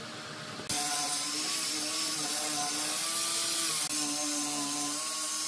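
Electric angle grinder fitted with a sanding pad, running and sanding pine wood, its motor pitch wavering as it is pressed into the wood. It starts abruptly about a second in.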